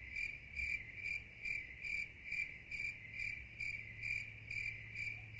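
Cricket chirping, an even high chirp about twice a second. It starts on a hard cut right after the talk, the stock 'crickets' sound effect for an awkward silence.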